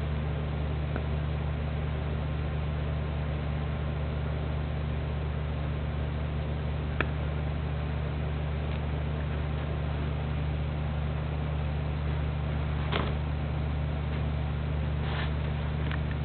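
Steady low hum with an even hiss, unchanging throughout, with a few faint single clicks about seven and thirteen seconds in.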